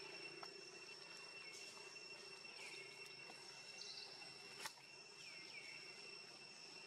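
Faint steady high-pitched insect trilling, with a few short chirps and one sharp click about two-thirds of the way through.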